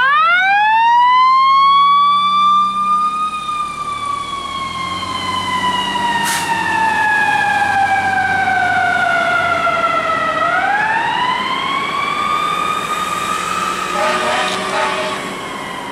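Fire department ladder truck's siren winding up: it climbs in pitch over about three seconds, slides slowly down for about seven seconds, then rises again and starts to fall once more.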